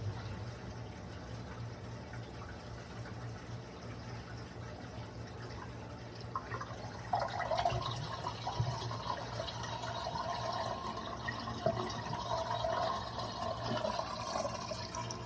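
Standing water draining out of a backed-up laundry wash tub and gurgling down the drain, over a steady low hum. The gurgling grows louder and splashier from about seven seconds in.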